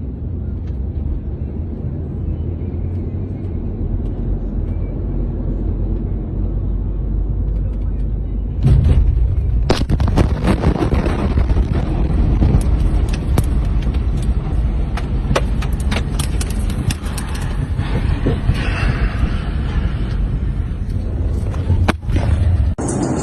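A steady low rumble, then a sudden loud roar about nine seconds in, with many sharp cracks and pops over it.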